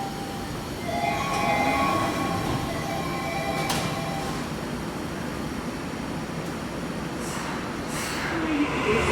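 Toei Mita Line subway train moving along the station platform: a steady rumble of wheels and running gear, with a brief group of steady tones between about one and three seconds in.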